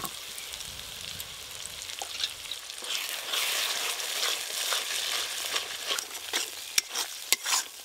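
Spiced masala gravy with fresh cashew paste sizzling in a metal kadai while a metal spatula stirs and scrapes through it. The sizzle gets louder about three seconds in, and near the end the spatula scrapes and taps sharply against the pan.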